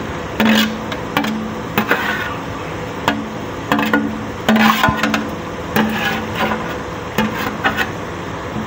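Metal ladle clanking and scraping on a metal tray and an aluminium cooking pot as chopped tomatoes and green chillies are pushed into the pot, in irregular knocks. A faint low hum comes and goes underneath.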